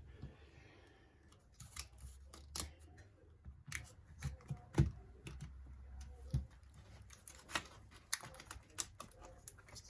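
Scattered light clicks and taps of a screwdriver, small screws and plastic laptop parts being handled while a trackpad is screwed back into a laptop's top plate.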